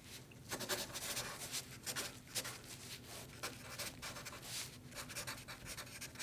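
Marker pen writing on a paper sticky note: a run of short, irregular scratching strokes of handwriting.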